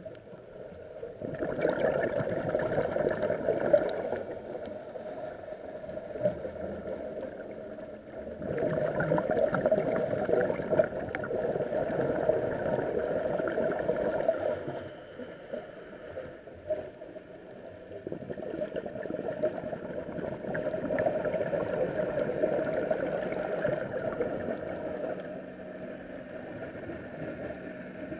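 Scuba diver's breathing heard underwater through a camera housing: bubbly rushing from the regulator's exhaled bubbles that swells and fades in long surges several seconds apart.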